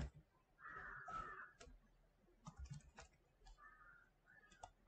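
Faint computer keyboard keystrokes and mouse clicks: a click at the start, scattered clicks, and a quick run of about four keystrokes a little past the middle. Short faint hazy sounds lie between them.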